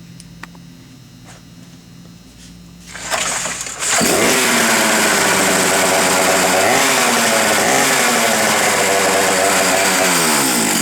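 Two-stroke chainsaw starting about three seconds in and running loud at high revs, its pitch wavering up and down, then the revs falling away near the end.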